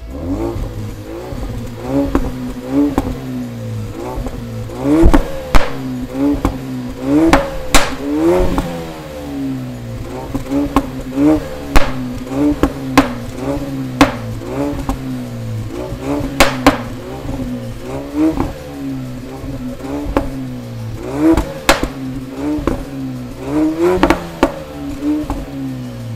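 Ford Focus RS's turbocharged 2.3-litre four-cylinder engine revved in repeated short blips at a standstill through a Milltek resonated exhaust with its valve open in sport mode. Sharp pops and bangs crack from the tailpipes as the revs fall after each blip.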